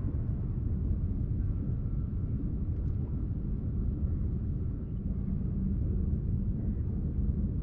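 Steady low rumble of wind buffeting the microphone out on open water.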